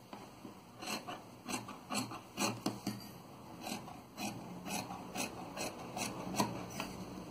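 Scissors snipping through fabric in a run of short cuts, roughly two a second, with a brief pause about three seconds in.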